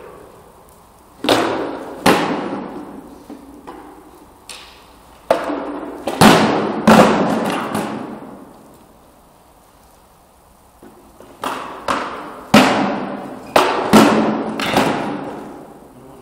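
Training weapons striking wooden round shields in Viking-style sparring, as sharp knocks that echo through a large hall. The blows come in two quick flurries of about six or seven each, with a pause of a few seconds between them.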